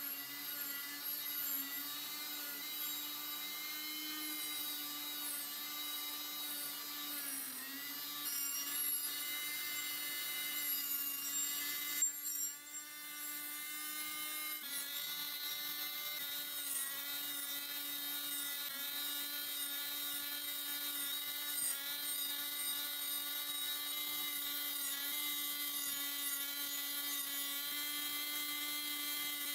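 Handheld rotary tool with a small thin disc running at a steady high whine while it grinds the rust from between the serrations of a steel dagger blade; the pitch dips and wavers as the disc bears on the metal. A brief sharp click and a short drop in sound come about twelve seconds in.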